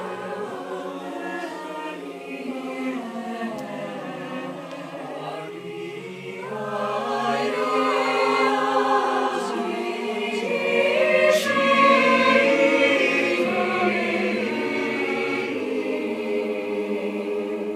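High school honors choir singing held chords, growing louder about six seconds in and fullest around twelve seconds, then breaking off right at the end.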